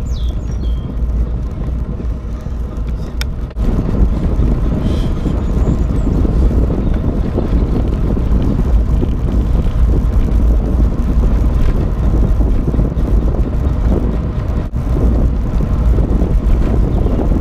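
Wind buffeting the microphone and road rumble while riding a bicycle, a steady low roar that gets louder about three and a half seconds in.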